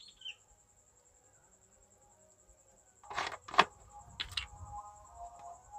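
Near silence, then a few sharp clicks and crackles of plastic as the blue screw cap of a plastic soda bottle is gripped and twisted by hand, the loudest snap coming about half a second after they start, followed by soft handling noise.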